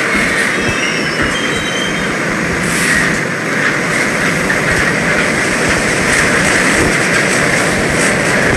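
MBTA Orange Line subway train running on the rails, a steady loud rumble and rail noise, with thin high wheel squeals in the first couple of seconds.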